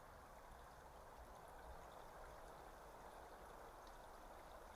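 Near silence with the faint, steady rush of a flowing stream.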